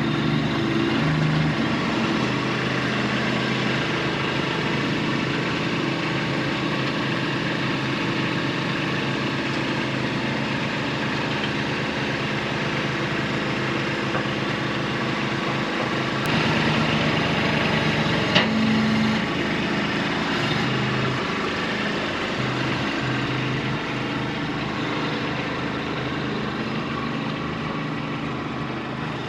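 Tractor engine running steadily, its pitch shifting a little now and then as it works to lift a heavy sawmill head. A single sharp click sounds over it about eighteen seconds in.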